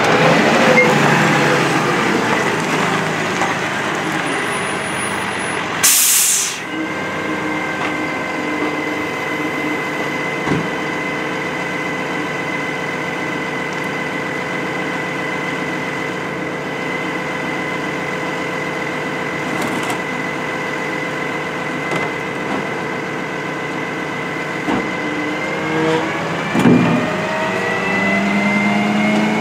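Heil Retriever garbage truck stopping, with one loud air-brake hiss about six seconds in. The engine then idles under a steady whine and revs up with rising pitch near the end.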